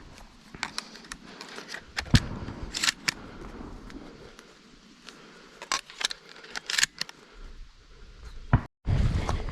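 Scattered sharp clicks and knocks with soft rustling between them, the sound of gear being handled close to the microphone. The sound drops out briefly near the end, then louder rustling comes in.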